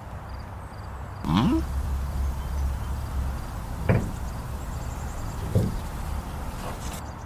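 Cartoon sound effects: a short rising, sliding sound with a low rumble about a second in, then two separate heavy thuds.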